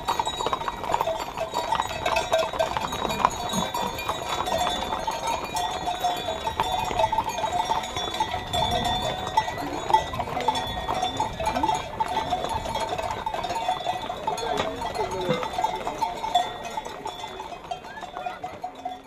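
Sonnailles, the bells worn by a roussataïo herd of Camargue mares, jangle continuously as the herd walks along a road, over the clatter of many hooves on the tarmac. It fades away near the end.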